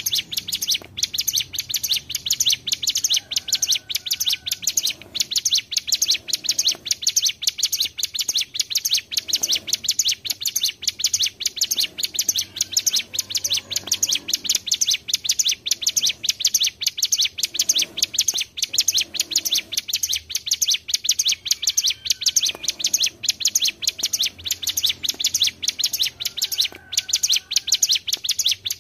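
Ciblek gunung, a mountain prinia, singing a long, unbroken rapid trill of sharp, high chipping notes: the continuous "ngebren" song used as a lure call.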